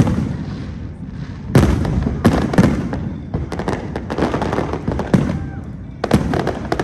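Aerial fireworks shells bursting in a string of booms, each about a second apart, with a quick run of crackling pops partway through.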